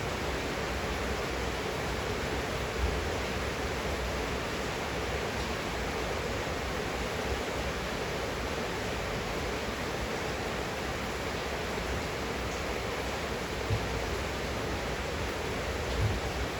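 Steady rain falling, an even hiss, with a few brief low thuds.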